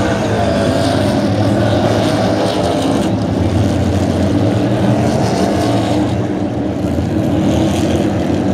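A field of NASCAR Cup Series cars' V8 engines running together at low speed, a loud, steady drone of many engines at once.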